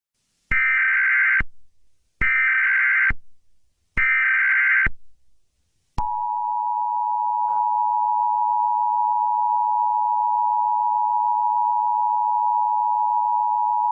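Emergency Alert System broadcast tones: three short screeching SAME data bursts about 1.7 seconds apart, then at about six seconds in the steady two-tone EAS attention signal, held to the end. The bursts carry the coded alert header and the attention tone signals that an emergency message follows.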